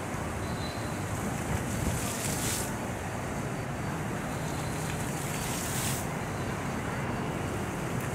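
Steady splashing of a plaza floor fountain's many small water jets, mixed with a low city traffic hum and wind on the microphone. The hiss swells for a moment about two seconds in and again near six seconds.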